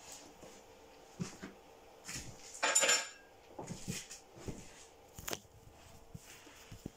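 Cutlery clinking and scraping against a plate in short, scattered touches, with a longer scrape about three seconds in and a sharp click a little after five seconds.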